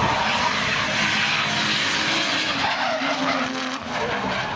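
Drift car sliding with its tyres screeching in a long, continuous skid while the engine runs hard.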